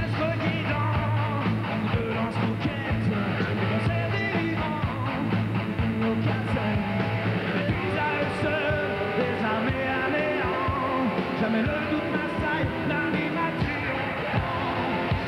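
Live rock band playing a song: a man sings lead vocals over electric guitar, bass guitar and drums.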